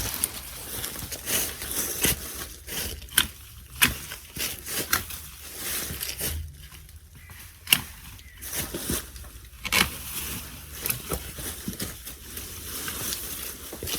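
Loppers cutting through the branches of a Pittosporum shrub: irregular sharp snips and cracks, among the rustle of leafy branches being pulled and moved.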